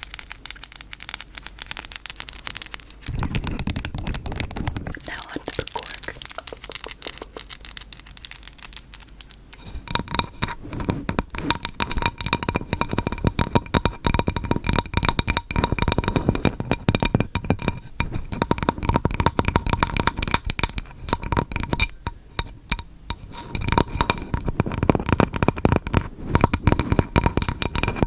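Close-microphone ASMR trigger sounds: a dense, rapid crackling and crinkling right on the mic. About ten seconds in it turns fuller and lower.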